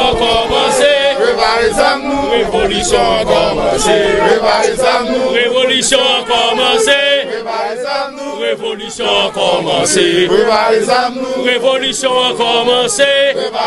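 A crowd of men chanting together in unison, loud and continuous.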